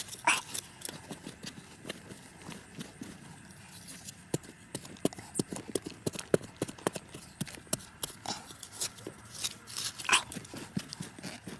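Small metal hand trowel digging and scraping through loose, damp soil and gravel: a run of short scrapes, knocks and clicks as the blade strikes dirt and pebbles, with a longer scraping stroke just after the start and another near the end.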